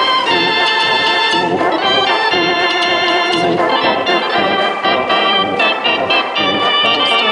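Mechanical dance organ playing a tune, held organ notes and chords that change every second or so.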